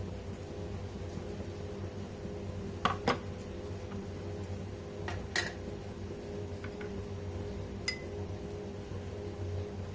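A few light clinks of kitchen utensils against cookware over a steady low hum: two close together about three seconds in, one more past five seconds and another near eight seconds.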